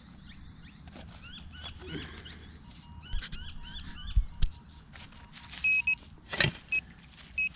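Handheld metal-detecting pinpointer being pushed and scraped through loose soil, then giving short, high steady beeps several times in the last two seconds as its tip nears a buried metal object.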